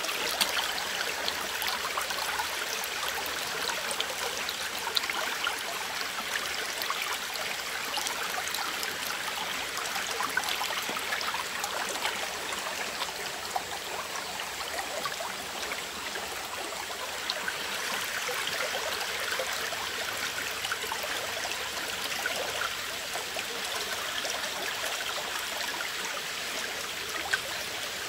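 Shallow tropical stream running steadily over its bed, a continuous watery rush with scattered small ticks.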